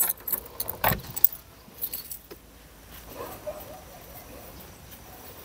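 Several sharp metallic clinks and knocks as tools and small objects are picked up and handled, in the first two seconds or so, then only a faint outdoor background.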